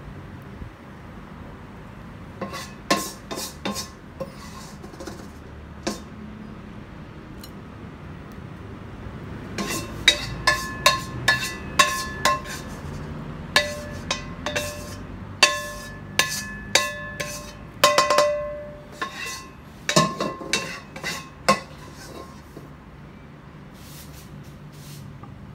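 A serving utensil clinks and scrapes against a ceramic plate as fried garlic shrimp are piled onto it. The clinks come scattered, each with a short ringing tone, and are busiest through the middle.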